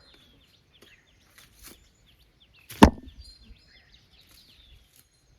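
A single sharp knock about three seconds in, as the amla tree is struck to bring down a ripe gooseberry, with a few fainter knocks and leaf rustles around it. Small birds chirp faintly in the background.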